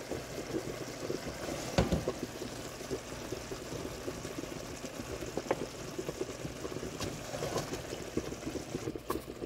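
Brown stew sauce bubbling at a simmer in a sauté pan, a steady dense crackle of small pops, with one sharper tap about two seconds in.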